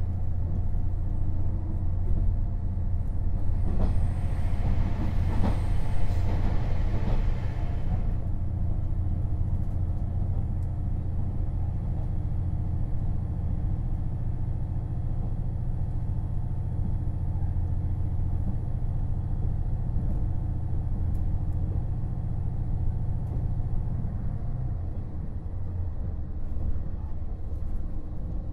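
Running sound of a KiHa 48 500-series diesel railcar heard from on board: a steady diesel engine drone with wheel-on-rail rumble. A hissing noise swells from about four to eight seconds in, and the engine note changes about 25 seconds in.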